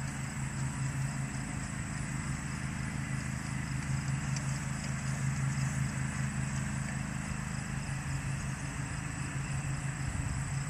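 An engine idling steadily, a low pulsing hum that runs evenly throughout.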